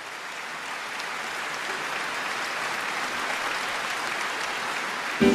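Concert audience applauding steadily, slowly growing louder. Right at the end the accompaniment strikes up with loud chords.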